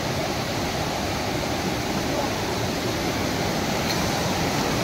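Mountain stream rushing over boulders: a steady rush of white water.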